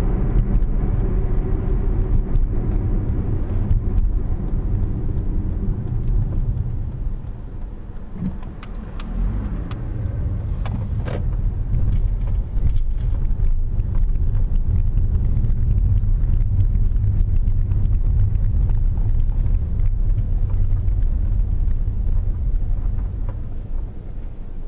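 Car driving, heard from inside: a steady low engine and road rumble that eases off for a couple of seconds partway through and then builds again, with a few light clicks and rattles.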